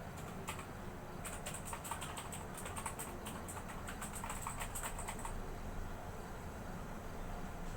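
Typing on a full-size mechanical keyboard with blue clicky switches: a rapid run of sharp key clicks that stops about five seconds in.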